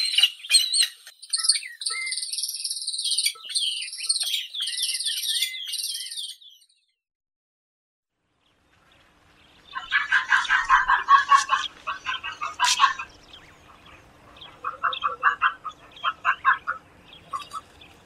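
Two vulture recordings in turn. First an Egyptian vulture recording: a fast run of high, thin chirping calls that stops about six and a half seconds in, followed by two seconds of silence. Then a hooded vulture calls in quick, lower, pulsed chattering runs, a long one of about three seconds and a shorter broken set a little later.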